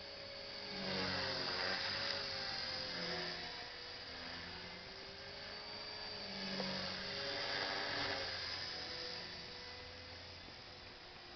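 Electric Align T-Rex 450 SE radio-controlled helicopter flying overhead: the whir of its rotor blades and the whine of its motor rise and fall in pitch as it manoeuvres. It grows louder twice as it passes nearer, about a second in and again after six seconds.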